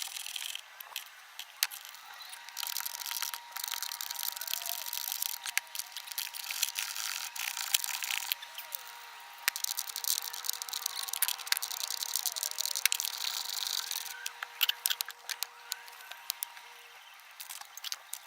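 Fast-forwarded sound of hand-tool work on a car door: many rapid clicks and rattles over a hiss, pitched up by the speed-up.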